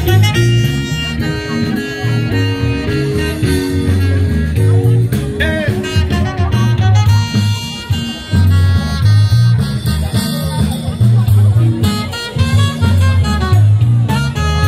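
Music with a steady, repeating bass beat and melodic lines over it.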